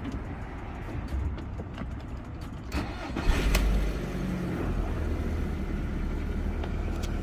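Audi A2's engine starting about three seconds in, then idling steadily.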